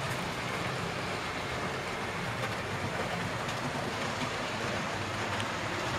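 Model railway locomotives running on the layout: the steady hum of their small electric motors and the rumble of wheels on the track.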